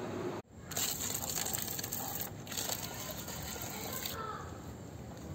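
A steady hiss of water spray on the car's fuel filler flap for about three seconds, with a short break midway, after a brief dropout near the start.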